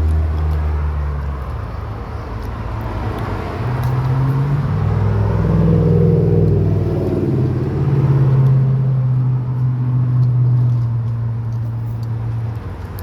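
A car engine running, with a low hum whose pitch shifts up and down several times.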